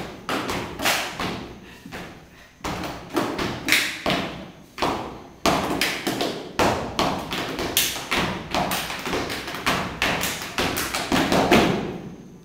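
A steady beat of heavy thumps, about two a second, each one echoing off the walls of a large hall.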